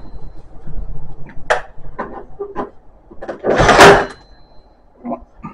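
Ozito battery-powered nailer-stapler firing into a split door's edge to re-staple it: one loud shot about three and a half seconds in, with lighter clicks and knocks of the tool being handled and repositioned before it.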